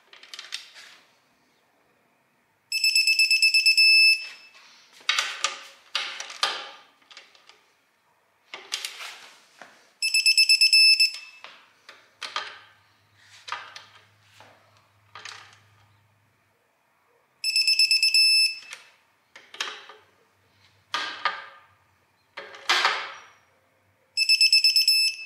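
Digital torque wrench beeping in a rapid pulsed train each time a 14 mm bolt reaches its set torque of 29 ft-lb, four times, about every seven seconds. Short ratchet clicks and knocks come between the beeps as the wrench is moved from bolt to bolt.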